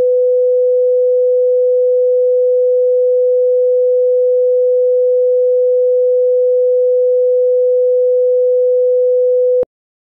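Heart-monitor flatline tone: one unbroken steady beep, the sign that the heart has stopped beating. It cuts off suddenly with a click near the end.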